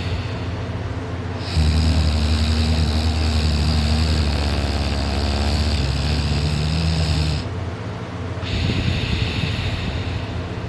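A man snoring in his sleep: one long, loud buzzing snore starting about a second and a half in and lasting about six seconds, then a quieter breath near the end.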